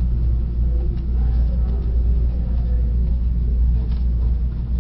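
A steady low rumble of background hum, with faint scratching of a pen writing on paper.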